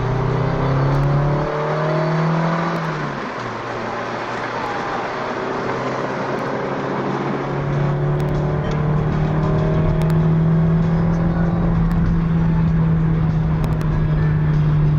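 Nissan Silvia S14 Q's 2.0-litre four-cylinder engine running under way: its note rises for the first couple of seconds, drops off about three seconds in, then settles into a steady drone from about eight seconds on.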